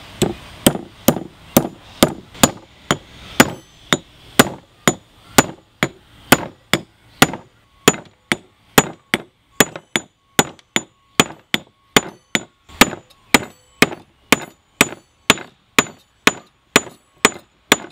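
A hand hammer striking a round steel wedge into the eye of a Swedish hammer head, driving it into the end of the new wooden handle to lock the head on. The strikes are sharp and metallic, a steady run of about two and a half a second, each with a short ring.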